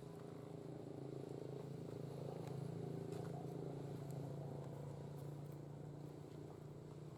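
Faint low engine hum that grows louder to about three seconds in and then fades, with a few faint clicks.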